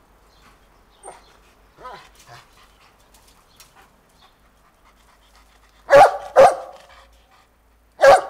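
Estrela Mountain Dog barking: after a few faint short sounds, two loud barks in quick succession about six seconds in, then another bark right at the end.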